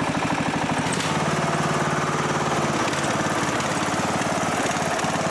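Craftsman LT2000 riding lawn mower's engine running steadily, with an even, rapid firing pulse; the sound becomes fuller and steadier about a second in.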